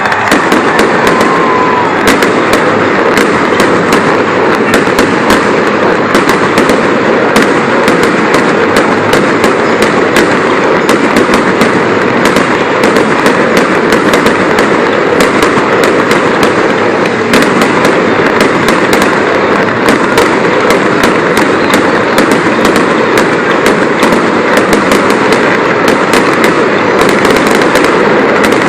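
Fireworks going off in a dense, continuous barrage: loud, overlapping bangs and crackles many times a second with no pause.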